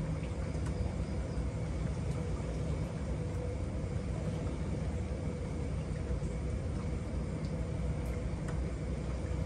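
Steady low outdoor rumble of background noise, even throughout, with a faint steady hum above it.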